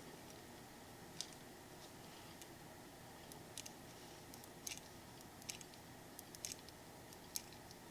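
Faint, irregular light clicks from handling the 1924 Hamilton 912 pocket watch, with no steady tick: the watch is not running.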